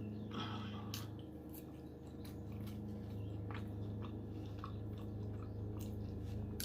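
Close-miked chewing and crunching of fried food, with irregular crackly bites. A lawnmower engine drones steadily in the background.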